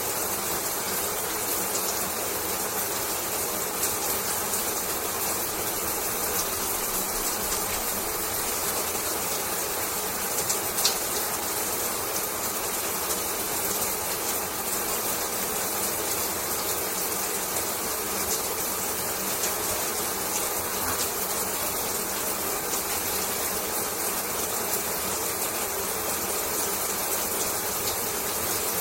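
Shower water running steadily, an even spray hiss of water hitting the floor, with a few faint sharp ticks, the clearest about eleven seconds in.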